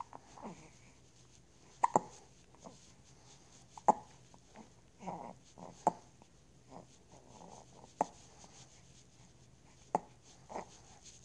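A person hiccuping, a sharp gulping click about every two seconds. Between the hiccups there is loud, close breathing, because the phone's microphone is held right at the mouth.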